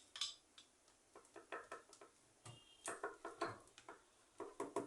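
Pliers gripping and twisting a very tight screw, giving a faint, irregular scatter of short metallic clicks and scrapes.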